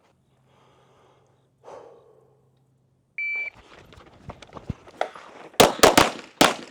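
A shot timer's start beep about three seconds in, then footsteps and rustling as the shooter moves, and near the end four pistol shots in quick succession.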